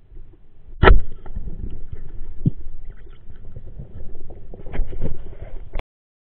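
Underwater, muffled through the camera housing: a single sharp, loud knock about a second in, a rubber-band speargun firing. It is followed by low rumbling water movement with scattered small clicks. The sound cuts out suddenly near the end.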